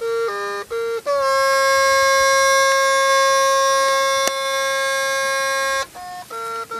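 Hmong raj nplaim, a bamboo pipe with a free reed, played solo with a bright, reedy tone: a few short notes, then one long held note for about five seconds, then short notes again near the end.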